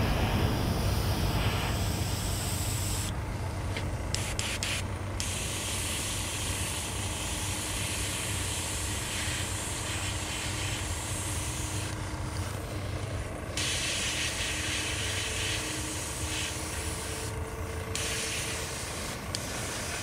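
Airbrush spraying paint with a steady hiss that stops briefly several times and starts again, over a constant low rumble.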